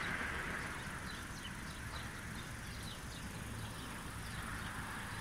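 A small bird chirping in quick, short repeated notes over a steady low hum of honeybees foraging in a flowering eucalyptus tree.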